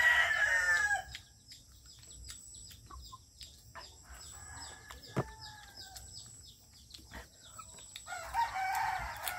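Rooster crowing: a loud crow at the start, a fainter one about four seconds in, and another near the end.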